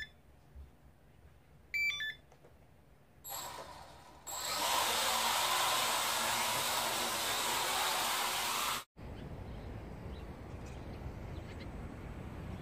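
Two short runs of electronic beeps, then a toy micro quadcopter's motors and propellers spin up and run with a steady whir for about five seconds, stopping abruptly; after that, a steady outdoor background hum.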